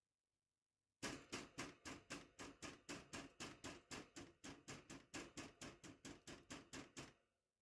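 Hand tapping rapidly on the top of a wire birdcage: a steady run of sharp knocks, about four a second, starting about a second in and stopping after some six seconds.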